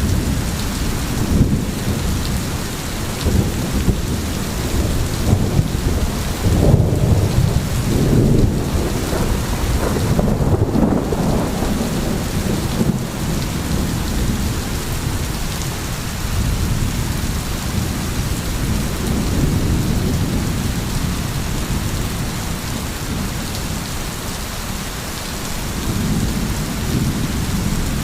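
Steady rain falling, with rolling thunder that swells a few seconds in and fades again.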